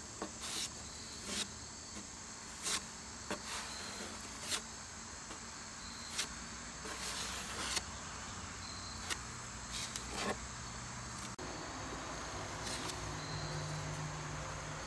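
Short scraping strokes of a spreader working Bondo body filler onto a fiberglass tractor fender, one every second or so, over steady chirping of crickets. A low hum comes in about two-thirds of the way through.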